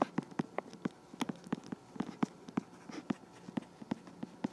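Stylus tapping and clicking on a tablet screen while words are handwritten: a quick, irregular run of sharp taps, about three to four a second, over a faint steady hum.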